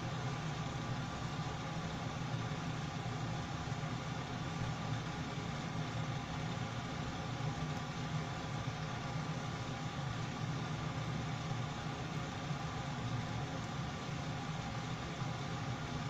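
Kitchen exhaust fan running with a steady low hum and even airy whoosh.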